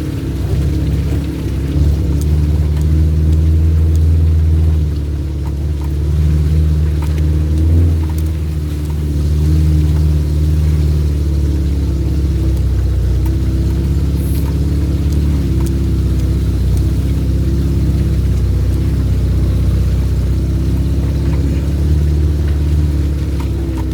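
Off-road vehicle's engine running steadily, with the level swelling a little now and then as the revs change.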